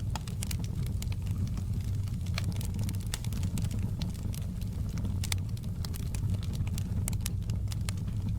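Fireplace fire burning: a steady low rumble with frequent, irregular sharp crackles and pops.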